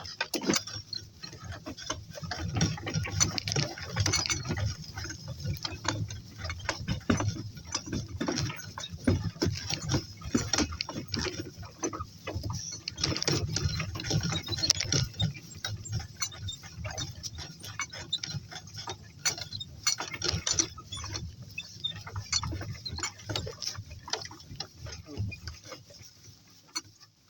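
Irregular rattling, clicking and knocking of a donkey-drawn cart rolling over rough ground, over a low rumble. It stops near the end.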